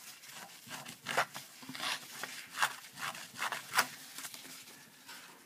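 Handheld edge distressor scraping along the edge of a sheet of cardstock in a series of short, irregular strokes, roughing up and fraying the paper edge.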